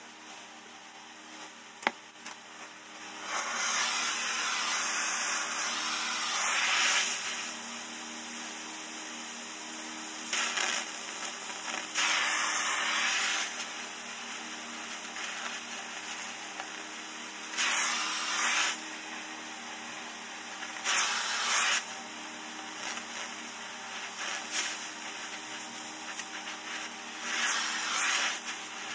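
Small gas torch hissing steadily as it heats the joint of a steel exhaust pipe with a filler rod, surging louder in about five hissing bursts of one to three seconds each, starting about three seconds in.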